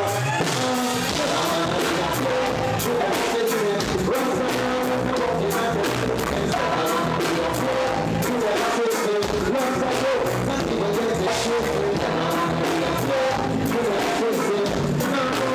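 Live reggae band playing: drum kit, bass and electric guitar, with a male vocalist singing into a microphone.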